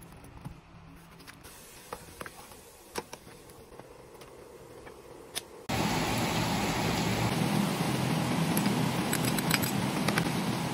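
A kitchen knife cutting bitter melon, heard as a few soft clicks. About halfway through it cuts off abruptly to a loud, steady rushing noise with scattered light clicks of utensils and ingredients.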